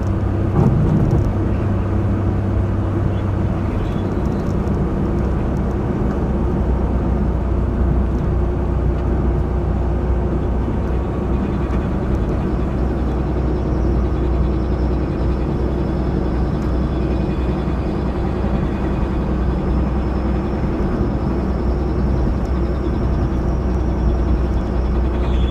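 Honda Acty HA-3 running with a steady low drone, recorded to check it for an abnormal noise. A faint high whine comes in about halfway through and holds steady.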